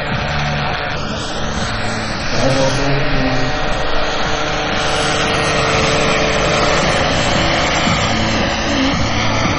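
Radio-controlled scale model helicopters flying past: a steady rotor and engine sound that grows louder about two seconds in.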